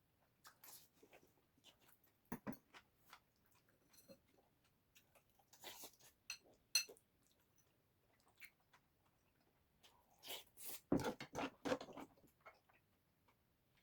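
Eating sounds played at double speed: chewing and crunching with scattered light clicks, busiest about ten seconds in.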